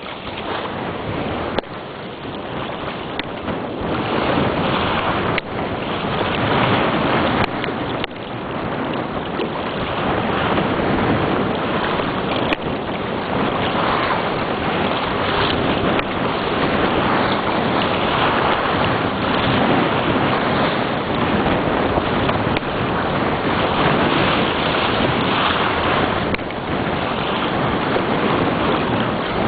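A JS9000 sailboat under way: wind buffeting the microphone over water rushing along the hull, a steady noise with no voices, growing louder over the first ten seconds or so and then holding.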